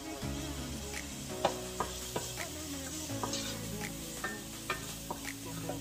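Chopped onions and chili sizzling in hot oil in a pot, stirred with a spatula that scrapes and taps against the pot with scattered short clicks.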